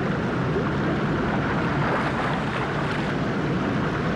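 Storm sound: heavy rain and wind with rushing water, a steady dense noise.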